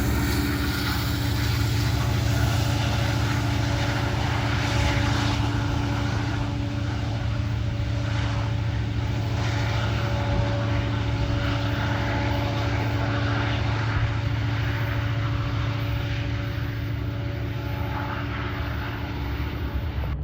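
A CSX freight train passing: a steady diesel engine drone over continuous rumbling and rolling noise from the train.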